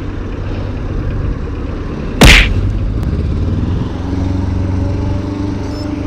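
Strong wind buffeting the microphone of a chest-mounted action camera while cycling, a steady low rumble, with one loud sudden thump a little over two seconds in.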